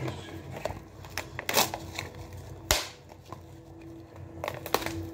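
Plastic wrap crinkling and a packaged tray of raw pork chops being handled on a countertop, with scattered sharp clicks and taps, the loudest close to three seconds in.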